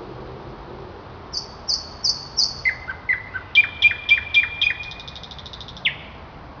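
A songbird singing one song: four high, down-slurred notes, then a quicker run of lower notes, ending in a single sweeping note near the end.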